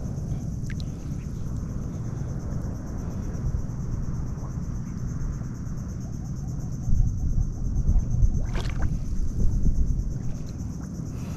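Wind rumbling on the microphone over rippling water, gusting stronger about seven seconds in, with one sharp click or knock near the end. A faint steady high buzz runs underneath.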